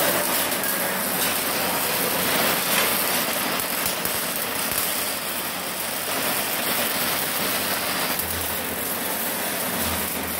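MIG welding arc crackling and hissing steadily, fed by a MIG-MAG 350N G-KR inverter welder and wire feeder. A low throb comes and goes near the end.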